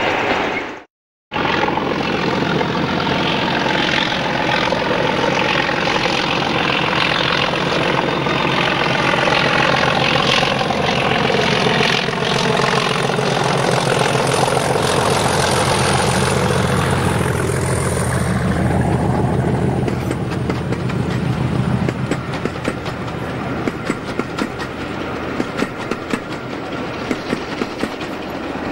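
English Electric Class 37 diesel locomotive's V12 engine working as it approaches and passes at the head of a passenger train, its note gliding as it goes by. After the locomotive passes, the engine fades and the clickety-clack of coach wheels over rail joints continues as the coaches roll past. Near the start the sound cuts out for a moment.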